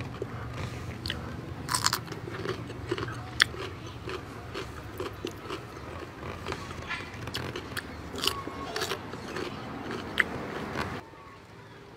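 Close-up eating sounds: crunchy bites and chewing of raw cucumber slices scooped through fried pea eggplants, with sharp crunches every second or so. They stop about a second before the end.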